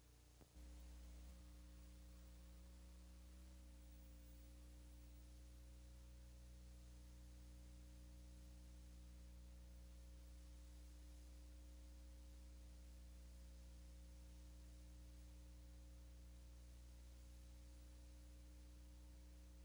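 Near silence with a faint, steady electrical hum and a few steady tones that come in about half a second in.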